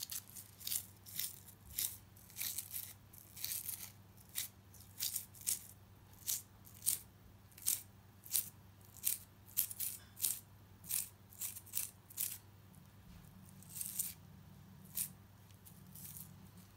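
A finger flicking across the bristles of a toothbrush loaded with white paint, a short bristly rasp about twice a second that spatters paint onto the paper as stars. The flicks pause about twelve seconds in, then three more follow.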